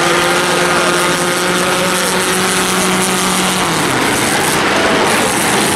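Race car engines running around a short oval track, one engine holding a steady note, then dropping in pitch about three and a half seconds in as it backs off, over the constant noise of the others.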